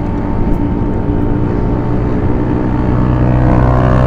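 Motorcycle engines running steadily at road speed, getting a little louder over the last second as a Suzuki VanVan RV125 draws alongside.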